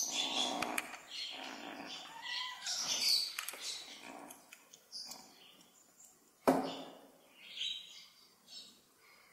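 Sunda leopard cat kitten chewing and tearing at raw fish: irregular chewing sounds, busier in the first half, with one sharp knock about six and a half seconds in.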